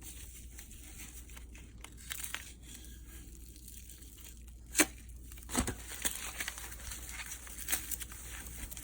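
Packaging being torn open and crinkled by hand, faint at first, with a sharp click about five seconds in and then busier rustling and small knocks.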